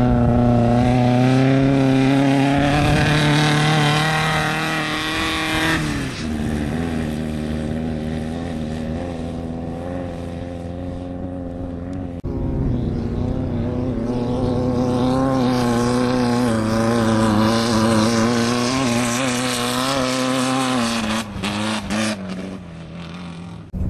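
Off-road desert race vehicles at high revs as they work through deep silt. One engine holds its revs for about five seconds and then drops in pitch and fades. About halfway through, the sound jumps to another loud engine held steady at high revs, and it drops in pitch near the end.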